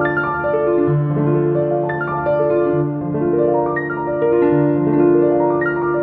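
Background piano music: slow, sustained low notes changing about every two seconds under a flowing pattern of higher notes.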